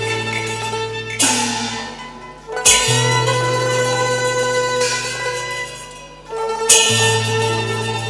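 Cantonese opera ensemble playing an instrumental passage with no singing. Plucked or struck strings lead, over a held low note, with a strong stroke twice, about four seconds apart, each ringing away afterwards.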